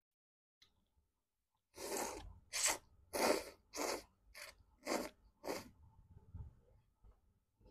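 Spicy instant noodles slurped into the mouth in a run of about seven quick, noisy slurps, roughly two a second, starting about two seconds in, followed by softer chewing.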